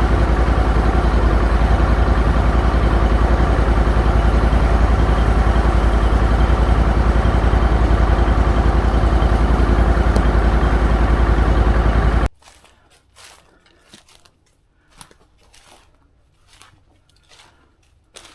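An engine running steadily, cutting off abruptly about twelve seconds in; after that only faint, scattered crunches and rustles.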